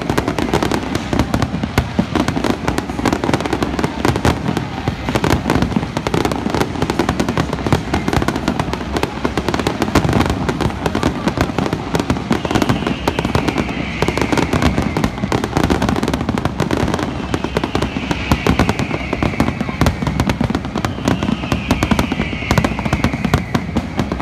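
Fireworks display going off in a dense barrage: rapid, continuous bangs and crackling shell bursts, with three falling high-pitched tones in the second half.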